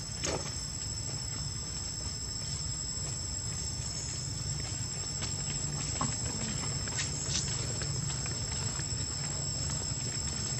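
Outdoor ambience: a steady high-pitched whine and a low hum throughout, with scattered light clicks and rustles of dry leaves as monkeys shift on the leaf-littered ground.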